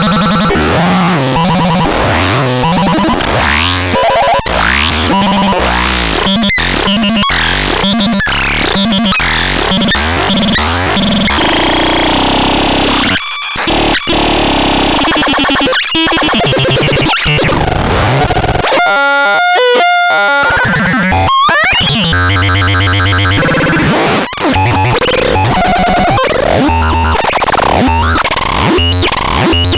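Veverka Rodí synthesizer producing harsh, chaotic electronic noise: dense noisy textures with sweeping pitch glides that change abruptly. A few brief drop-outs break it, and past the middle there is a short passage of wobbling, stepping tones.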